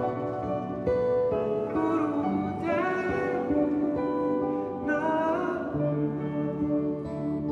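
Two acoustic guitars playing with a man singing over them; a low held note comes in near the end.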